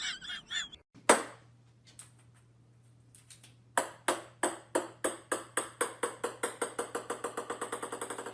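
A run of sharp, ringing pings that speeds up to about six a second, over a steady low hum, after a single sharp click and a few scattered ticks.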